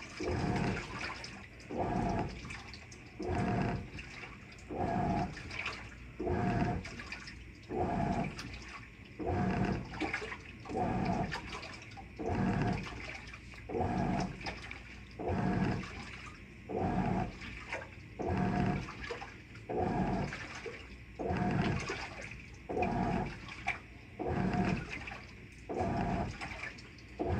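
Avanti top-load washer agitating on its whites cycle: the wash motor hums in even strokes about every second and a half, turning the washplate back and forth, with water and clothes sloshing in the tub.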